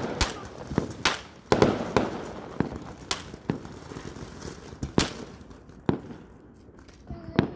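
Fireworks going off in an irregular string of sharp bangs, about one or two a second, each with a short echoing tail. They thin out in the last couple of seconds.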